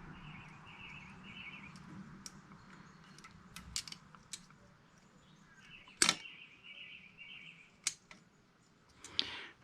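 Faint, scattered clicks and taps of small engine parts and a rubber hose being handled during carburetor reassembly, with a sharper click about six seconds in and another near eight seconds.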